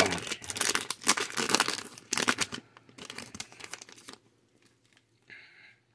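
Wrapper of a Yu-Gi-Oh booster pack crinkling as it is opened and handled: a run of rapid crackles that stops about four seconds in.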